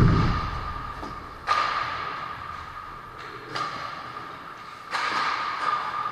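Ice hockey play in an indoor rink, sticks, pucks and skates on the ice: a loud thud at the start that booms and dies away, then three sharper hits about 1.5, 3.5 and 5 seconds in, over a steady high-pitched hum.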